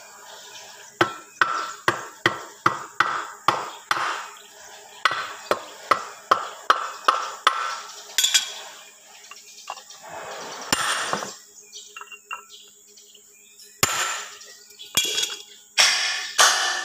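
Hammer blows on metal, about three a second for some seven seconds, then a quieter stretch with a few single knocks, and quick blows again near the end.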